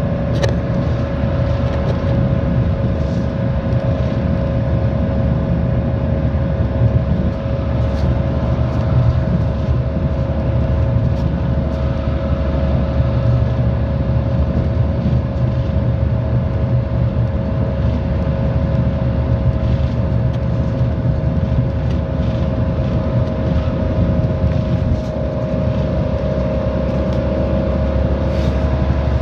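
City bus, TheBus Honolulu No. 194, running at a steady pace: a low engine drone with a steady whine over it and a few light rattles and clicks.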